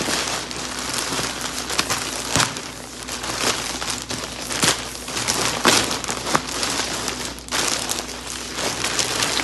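Clear plastic garment bag crinkling and crackling as it is handled and pulled open, with many sharp crackles throughout.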